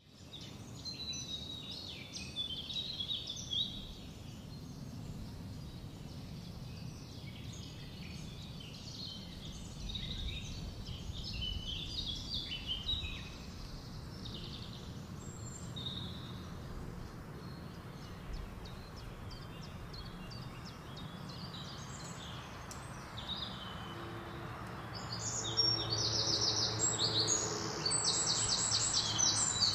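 Birds chirping, many short overlapping calls over a steady low background noise; about 25 seconds in, a louder, fast repeated trill sets in.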